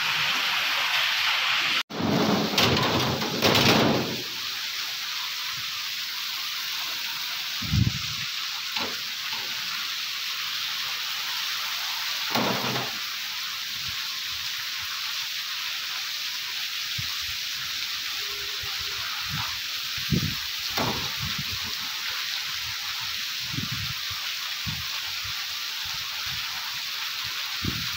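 Heavy rain pouring steadily onto a brick-and-concrete courtyard, a constant loud hiss. A few brief low thumps come through it, the strongest in the first few seconds.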